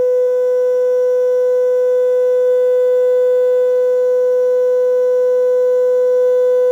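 Car audio mid-range speakers playing a steady sine test tone of about 500 Hz at high volume, with fainter overtones above it. It is the test signal used to set the mid-range amplifier's limiter.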